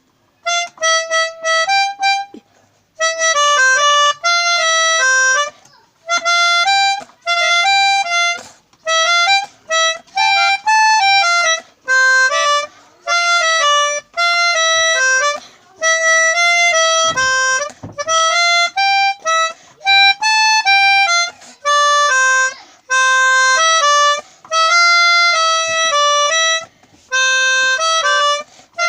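Pianika (keyboard melodica) playing a simple melody one note at a time, in short phrases with brief breaths between them.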